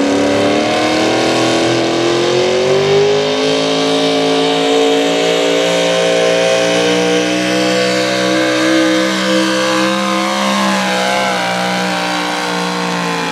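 Modified small-block V8 of a Chevy 4x4 pulling truck at full throttle, dragging the weight-transfer sled. Its pitch climbs over the first three or four seconds as it gets going, then holds high and steady, wavering briefly near the end.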